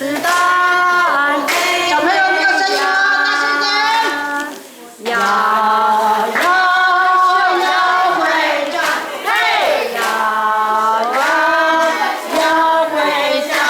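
Group of children singing a hymn together in held, sustained notes, with a brief pause about five seconds in before the singing resumes.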